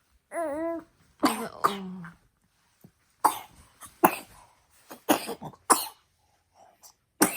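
A person coughing repeatedly: a series of harsh coughs spread across several seconds, the coughing of someone ill with a fever and cough. A short voiced sound comes just before the first cough.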